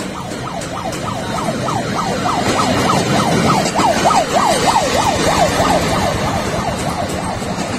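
Railway motor trolley passing with its electronic warning siren yelping, a fast up-and-down wail about five sweeps a second. It swells as the trolley draws level and fades as it moves off.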